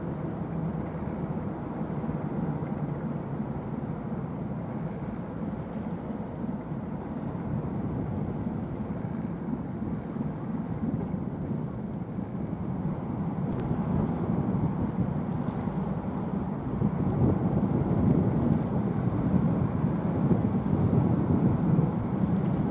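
Steady low rumble of a large cargo ship under way, swelling louder about three-quarters of the way through.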